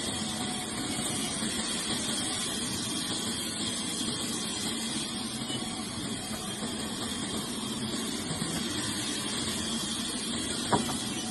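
Woodworking machine running steadily with an even hiss and hum, and one sharp click near the end.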